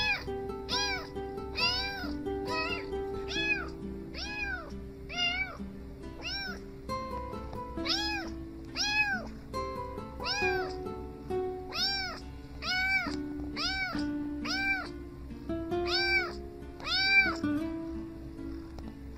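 Kitten meowing again and again, short high meows that rise and fall in pitch, about one a second, over soft background music.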